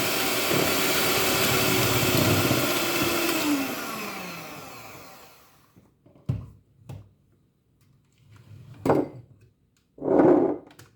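Electric mixer beating egg yolks with sugar at high speed. About four seconds in it is switched off, and its pitch falls as the motor winds down. A few separate knocks follow, the loudest near the end.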